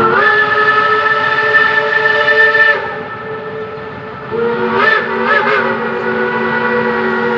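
Steam whistle of a Shay geared locomotive blowing two long blasts. The second blast wavers into a couple of quick toots about a second after it starts, then holds steady.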